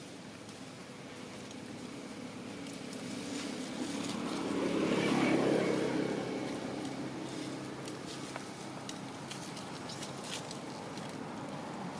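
A motor vehicle's engine passing by, growing louder to a peak about five seconds in and then fading away.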